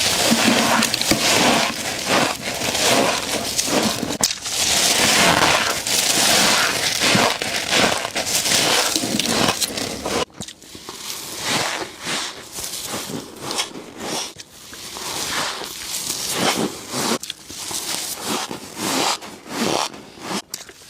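Freezer frost being scraped and crunched between the teeth close to the microphone: dense crackling crunches. After about ten seconds the crunching thins out into separate bites.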